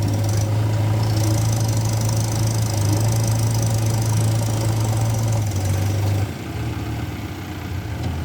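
Heavy diesel engine of earth-moving or farm machinery running steadily with a deep hum. It drops in level about six seconds in and picks up again near the end.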